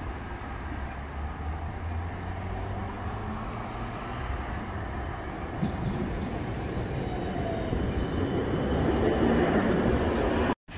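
Siemens Combino tram running on its rails: a steady rumble and rolling noise that grows louder toward the end, then cuts off abruptly.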